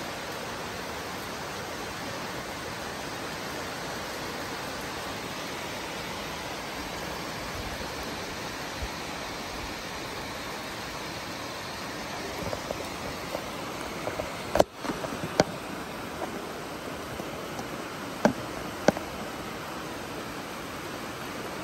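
Steady rain falling, an even hiss. A few sharp taps land in the second half, the loudest about two-thirds through.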